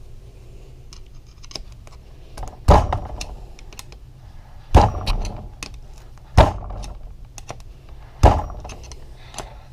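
Four heavy knocks about two seconds apart, with light clicking in between: the engine cases and the wooden support blocks under them being shifted and set down on the workbench.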